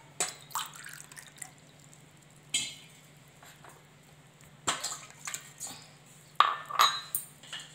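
Water heating in a stainless steel pot on a stove, with scattered ticks and pops as bubbles start to form on the hot bottom, the loudest cluster near the end, over a low steady hum.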